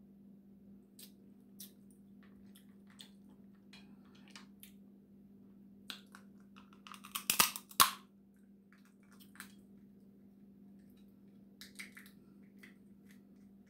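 Dungeness crab shells cracking and crackling as they are broken apart by hand and eaten. Small scattered clicks run throughout, with a loud burst of cracking about halfway through.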